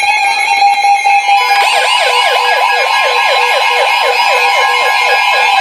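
Weather radio alert alarms sounding together: a steady electronic tone, joined about a second and a half in by a fast electronic siren yelp that sweeps about three times a second. The alarm signals an incoming warning alert.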